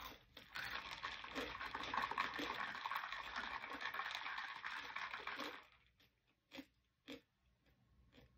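Drinking through a straw from a plastic tumbler: a long, crackly sucking slurp lasting about five seconds that stops suddenly, then two soft clicks from the mouth.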